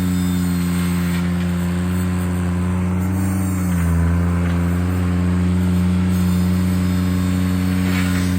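Ventrac compact tractor engine running steadily; its pitch sags briefly about three and a half seconds in, then comes back up.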